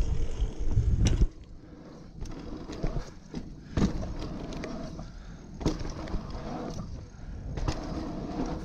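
Mountain bike riding a dirt jump trail: wind buffeting the microphone with a loud low rumble for about the first second, then tyres rolling on dirt with the chain and frame rattling and a few sharp clacks over the bumps.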